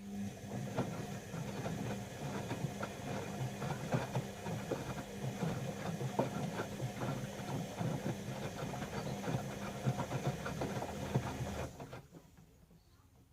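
Bauknecht WA 1460 front-loading washing machine turning its drum during the wash: a steady motor hum with the irregular rattle and slosh of wet laundry tumbling, which stops suddenly about twelve seconds in as the drum pauses.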